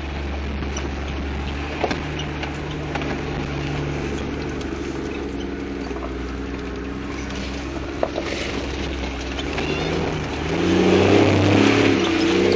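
Toyota 4x4's engine running and road noise heard from inside the cab while driving over a dirt track, with two sharp knocks. The sound gets louder near the end.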